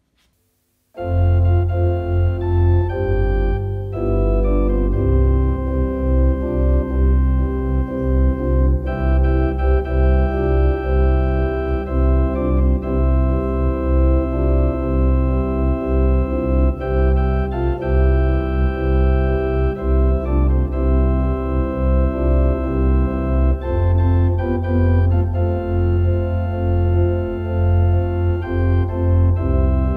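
Organ playing a hymn tune in sustained chords over a deep bass, starting about a second in.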